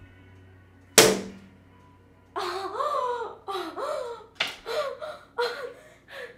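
One hard slap, a wasp being swatted, followed by a young woman's high-pitched squeals and cries in several short bursts.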